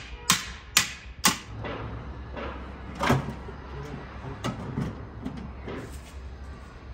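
Hammer blows during air conditioner installation: three sharp strikes about half a second apart in the first second and a half, then scattered lighter knocks and clatter.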